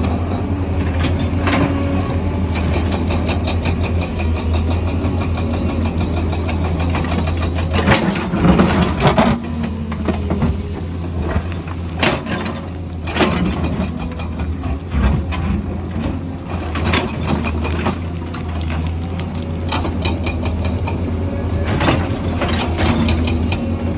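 Excavator's diesel engine running steadily, with a few sharp knocks or scrapes, a cluster about a third of the way in and more scattered later, as the machine works.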